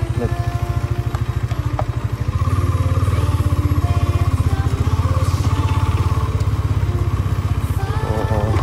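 Motorcycle engine running with a steady low exhaust beat, getting louder about two seconds in as the bike sets off slowly.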